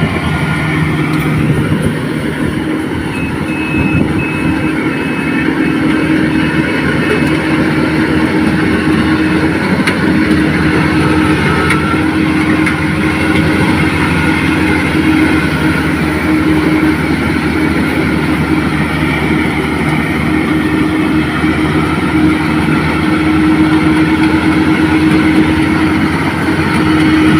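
Rice combine harvester running, its engine holding a steady pitch under a dense mechanical noise. A faint series of short high beeps sounds briefly a few seconds in.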